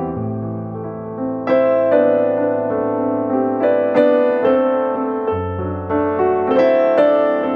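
Background music: gentle piano, or electric piano, playing held chords and single notes over a low bass.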